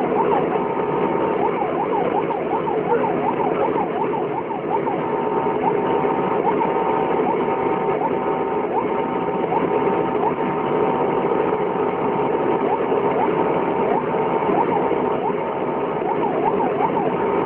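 Electronic vehicle siren yelping in fast rising-and-falling sweeps, slowing to occasional single rising chirps through the middle and quickening again near the end. Under it is the steady running noise of a heavy vehicle's engine, heard from inside the cab.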